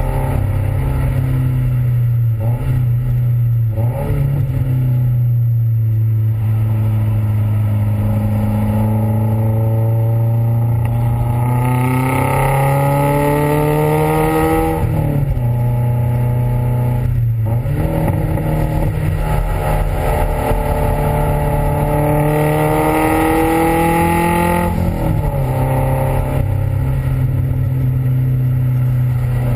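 Exhaust of a Subaru WRX STi's turbocharged flat-four under hard acceleration on track, heard right at the tailpipe with wind rushing past. The revs climb steadily twice and fall sharply each time, at about 15 s and again near 25 s, as the driver shifts or lifts.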